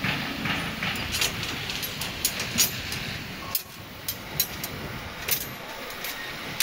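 Steel tie wire being twisted around rebar with a hand tying hook: a dozen or so irregular, sharp metallic clicks and scrapes over steady background noise.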